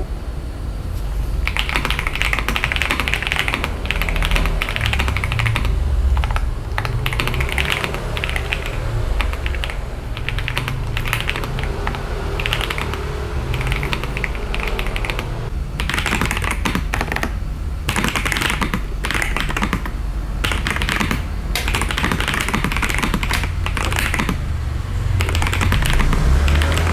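Ajazz AK820 mechanical keyboard fitted with Akko Cream Blue V3 tactile switches and cherry-profile keycaps, typed on continuously in a fast run of key clacks with a deep "tok" sound, broken by a couple of short pauses.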